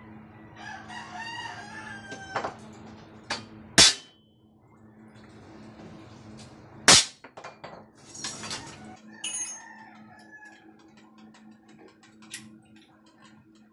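A rooster crows once, about a second in, and calls again more faintly near ten seconds. Two sharp knocks, the loudest sounds, come near four and seven seconds, with smaller ticks of tools being handled in between, over a steady low hum.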